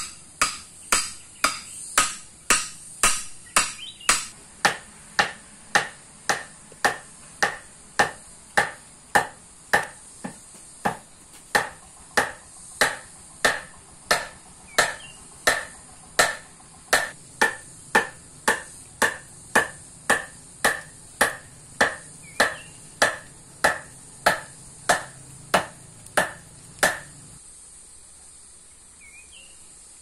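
Steady, even strikes of a hand tool, each a sharp knock, about three every two seconds; they stop about 27 seconds in.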